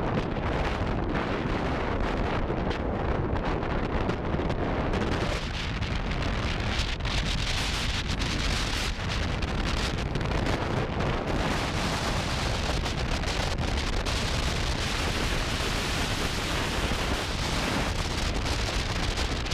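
Wind buffeting the microphone: a steady, loud roar with a heavy low rumble.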